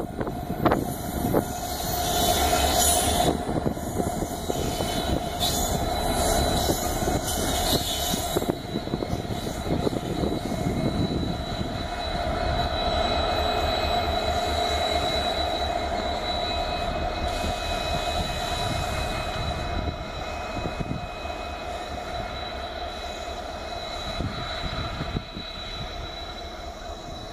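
Pair of WDG-4 diesel-electric locomotives running light past and away, their EMD two-stroke diesel engines droning with steady high tones over the rumble. Sharp wheel clicks over rail joints come thick in the first eight seconds, then the sound fades slowly as the locomotives recede.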